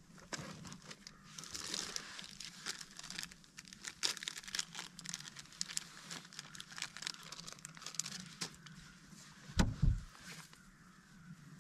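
Crinkling and rustling with many small scattered clicks, over a faint steady low hum, and one dull low thump about ten seconds in.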